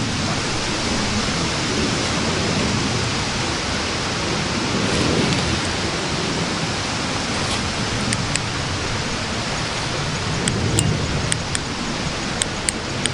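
Wind buffeting the microphone: a steady rushing noise, with a few faint small clicks in the second half.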